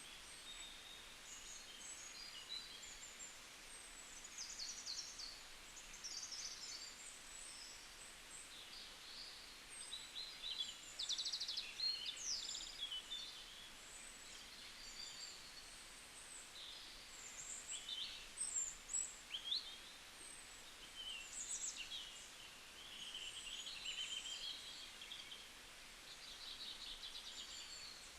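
Several small birds chirping and trilling, with short high calls, quick sweeps and rapid trills overlapping throughout, over a faint steady hiss.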